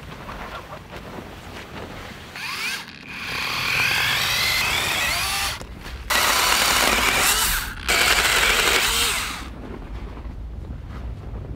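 Small cordless power saw cutting through branches, run in several bursts of a second or two each with short breaks between, the motor winding up in pitch as each burst starts.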